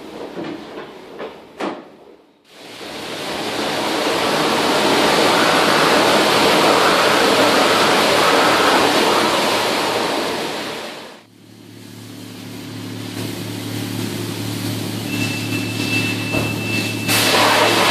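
Car-wash high-pressure spray wand blasting water onto a cast-iron lathe gearbox housing: a loud, steady hiss of spray that starts about two seconds in and fades out near the middle, then a steady machine hum until the spray starts again near the end. A few light scrubbing clicks come before the spray.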